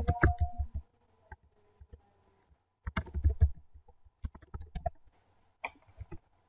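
Computer keyboard typing in four short bursts of keystrokes, each a quick run of sharp clicks with a dull thump beneath, separated by pauses.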